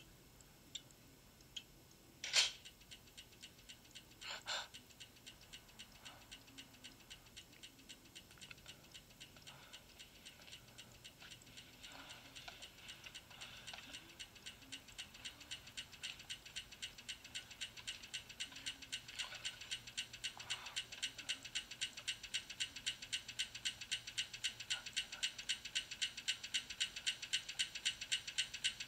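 A clock ticking fast and evenly, about three ticks a second, growing steadily louder, with two sharp clicks in the first few seconds. It is heard through a TV's speaker.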